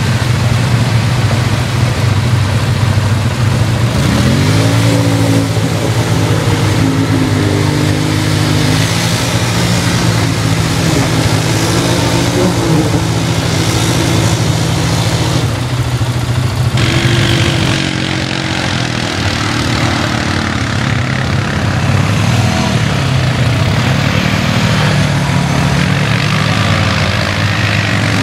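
ATV engine running under load, its pitch rising and falling as the throttle is worked, with a rev-up about four seconds in.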